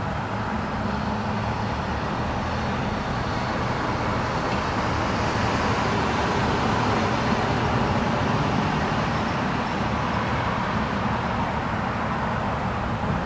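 Light road traffic: a steady low hum under the hiss of cars, with one car passing that swells up about a third of the way in and fades away near the end.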